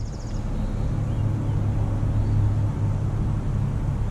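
Steady low rumble of a running vehicle engine. A road bike's freewheel hub ticks rapidly for a moment at the start as the bike coasts past.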